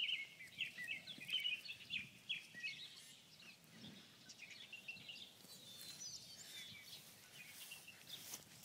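Birds chirping and singing: a dense run of short, quick calls, thinning out after about three seconds and picking up again with some higher calls toward the end.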